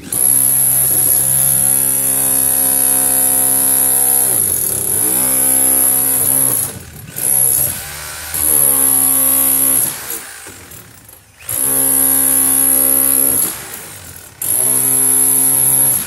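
Corded electric demolition hammer (small jackhammer) chiselling at a limousine's steel window frame, run in bursts of a few seconds with a steady high whine from the motor. It is stopped and restarted about six times, one run very brief, and the pitch slides down each time the trigger is released and climbs again as it restarts.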